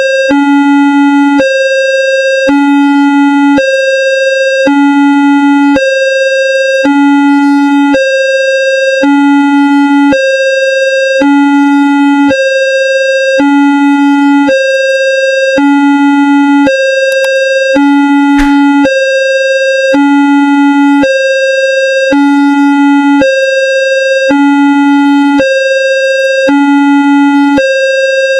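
Homemade sound effect of a railway level-crossing alarm: a low tone and a higher tone alternate steadily, each held about a second, repeating without a break.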